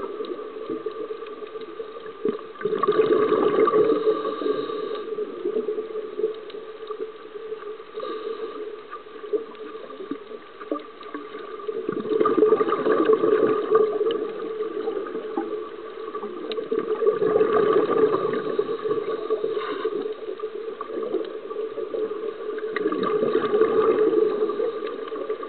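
Underwater bubbling and gurgling from a scuba diver breathing through a regulator: the exhaled bubbles swell and fade four times, several seconds apart, over a steady hum.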